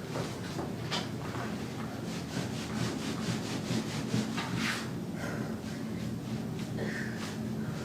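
Hands rubbing and stroking over skin in a back massage: a run of repeated rubs, one louder swipe about four and a half seconds in, over a low steady hum.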